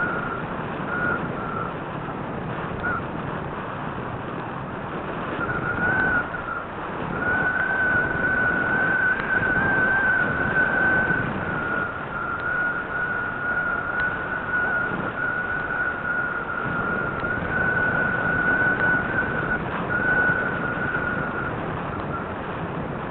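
Onboard sound of a model aircraft in flight: steady rushing air over the airframe with a high, slightly wavering whine that comes and goes in the first few seconds, then holds almost unbroken through most of the rest.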